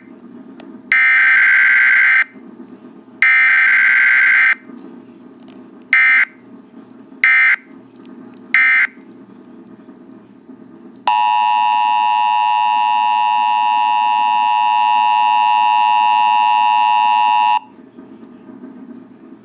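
Emergency Alert System tones from an EAS simulator app, played through a phone's speaker. First come buzzy digital data bursts of the alert header: two long ones, then three short ones. About eleven seconds in, the steady two-tone attention signal starts and holds for about six and a half seconds, then cuts off sharply.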